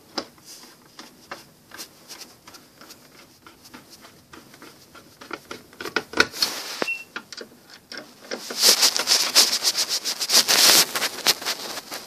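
Rapid clicking and scraping of a thin metal reset tool worked into a break-glass manual fire alarm call point while it is being reset. About eight seconds in, the scraping becomes denser and louder.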